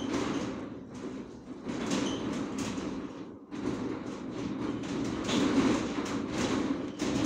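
Rubbing and rustling handling noise in uneven swells, dipping briefly about three and a half seconds in.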